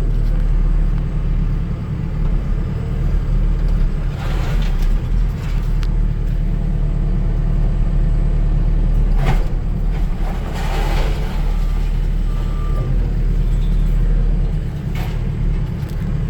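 Skid steer engine running steadily under load, heard from inside the cab, with a few clanks and scrapes of light scrap iron being handled, about four seconds in, around nine to eleven seconds and near the end.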